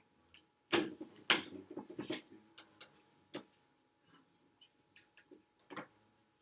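Classroom background: a scattering of sharp clicks and knocks, about half a dozen, with quiet gaps between them.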